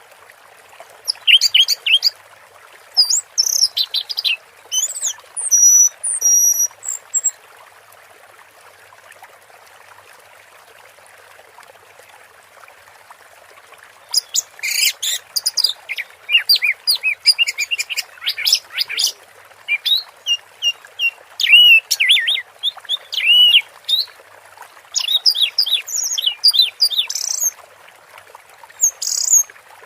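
Orange-headed thrush singing in quick bursts of high, varied chirping phrases. It pauses for several seconds around a quarter of the way in, then sings a long dense run from about halfway to near the end. A steady hiss runs beneath throughout.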